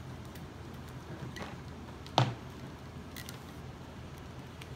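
Faint handling noise of braided fishing line and a plastic spinning knotter, with one sharp click about two seconds in and a few light ticks, over a steady low room hum.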